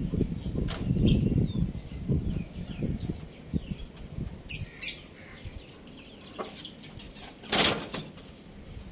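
Small caged birds chirping in short, quick calls, with soft rustling in the first couple of seconds. A brief loud flutter of wings comes near the end.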